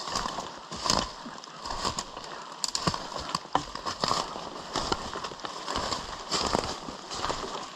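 A hiker walking downhill over wet forest ground: footsteps and the rustle of rain gear swell about once a second, with sharp clicks of hiking poles and gear against the camera's waterproof case.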